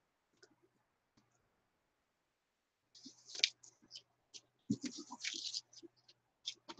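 Hands handling paper and a crumpled tissue on a craft table: a few faint clicks, then from about three seconds in a run of irregular crinkling and rustling.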